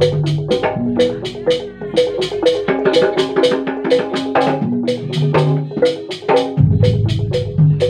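Upbeat percussion-driven music: rapid, even wooden strikes over a mallet-struck melody and a steady bass line.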